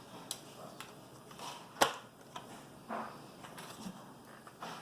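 Scattered light clicks, ticks and rustles of small plastic speaker parts being handled and set down, with one sharper click about two seconds in.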